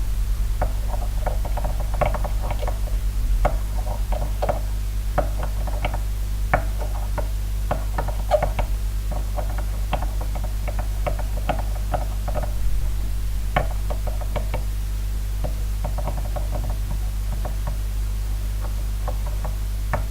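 Scissors clicking and tapping irregularly against a container while stirring a liquid soap slime mixture, over a steady low hum.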